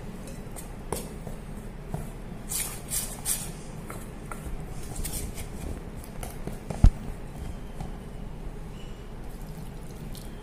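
A metal spoon stirring gram flour and water into batter in a stainless-steel bowl: wet squishing and scraping with light clinks against the steel, and one sharp knock about two-thirds of the way through.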